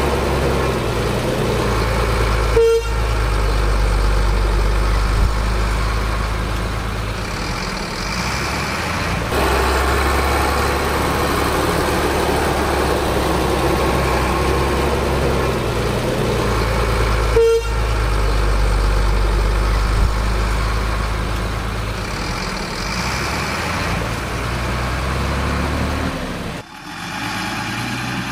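Heavy diesel dump-truck engines running, a steady low rumble, with two short horn toots, one a few seconds in and another a little past halfway. The sound drops away abruptly near the end.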